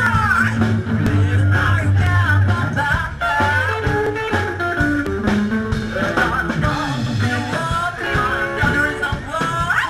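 Live rock and roll band playing, with singing over a plucked upright bass and drums.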